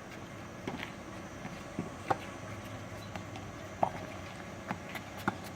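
A tennis rally: a ball struck back and forth with rackets, sharp knocks about a second and a half apart, with fainter knocks of the ball bouncing on the court between them.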